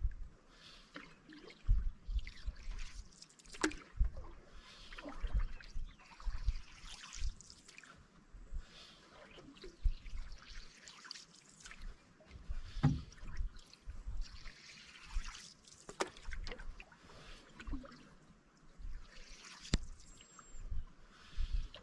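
Canoe paddling: water trickles and drips off the paddle blade with each stroke, about every one to two seconds, with a few sharp knocks and low thumps.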